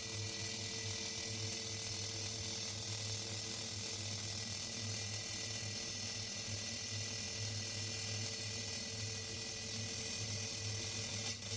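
High-voltage electricity buzzing: a steady low electrical hum under a constant crackling hiss. It starts abruptly and dips briefly near the end.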